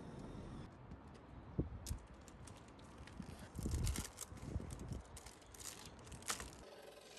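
An irregular run of small sharp clicks and crackles, with a couple of low thumps, the loudest about a second and a half in.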